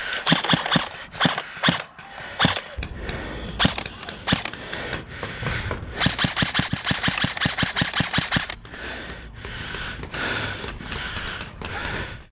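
Airsoft rifle shooting: scattered single shots, then a rapid string of roughly eight shots a second for about two and a half seconds, laying down covering fire. Softer, slower pops follow until the sound cuts off.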